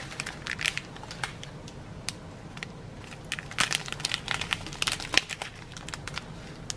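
Small clear plastic bags of round diamond-painting drills crinkling as they are handled and turned, in short bursts of crackles that are busiest a little past halfway.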